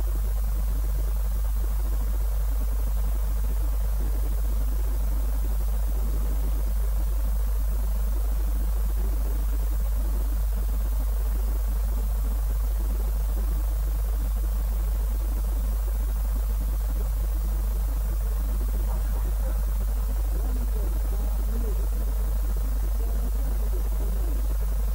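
Steady low electrical hum with a faint hiss, unchanging throughout; no other sound.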